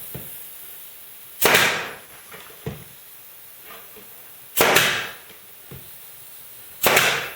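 Brad nailer driving brads through a drawer's OSB bottom into the back, three separate shots a few seconds apart, each a sharp pop with a short hiss after it.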